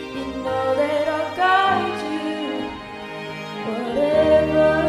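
A recorded song playing: a singer's melody with long held notes over instrumental accompaniment.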